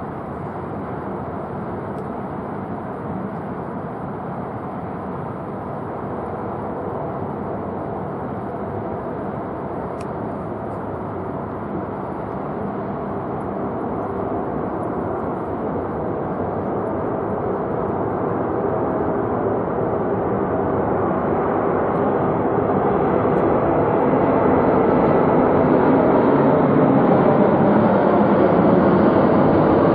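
Korean Air Boeing 747-8's four GEnx turbofan engines on final approach with gear down, a steady jet rumble growing gradually louder as the airliner comes in low toward and over the listener.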